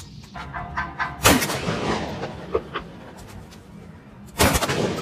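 A gunshot about a second in, followed by a short tail, and a second loud, rattling burst near the end.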